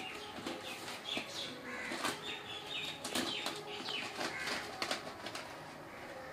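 Plastic packaging crinkling and rustling in irregular bursts as a clear plastic bag of coriander seed is pulled out of a white plastic courier mailer and handled, the seeds shifting inside the bag.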